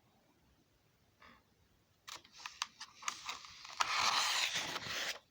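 Shovel digging into soil: a run of clicks and scrapes, then a louder scraping rush for about a second and a half that cuts off suddenly.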